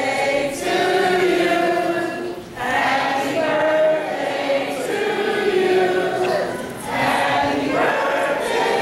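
Several voices singing together in long, held phrases, with brief breaks about two and a half and seven seconds in.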